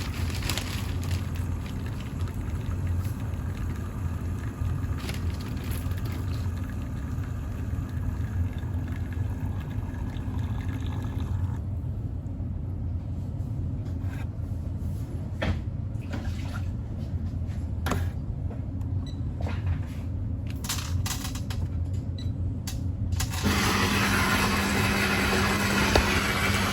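Water running steadily over a low hum. About halfway through, the higher hiss drops away and scattered clicks are heard; near the end a louder hiss with a steady low tone sets in.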